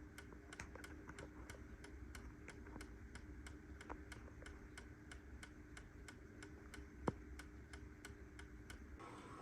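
Miniature 8-day grandfather clock ticking faintly and fast, about four ticks a second. One louder knock comes about seven seconds in.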